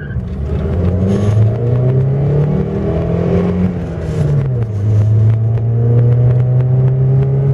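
VAZ 1.6-litre 8-valve engine, fitted with a 56 mm bored throttle body, accelerating hard through the gears, heard from inside the cabin. The revs climb and drop back at gear changes about a second in and again about four seconds in, then pull steadily higher in the next gear.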